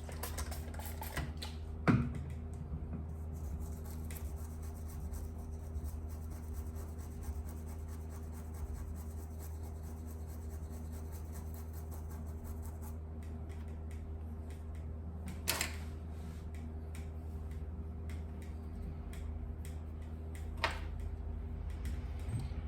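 Steady low electrical hum, with three light, sharp clicks or taps: one about two seconds in, one about two-thirds of the way through, and one near the end.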